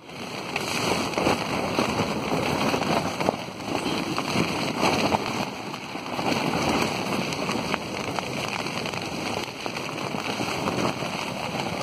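Heavy storm rain and wind hitting a tent's fabric, heard from inside the tent: a dense, steady noise with irregular small hits.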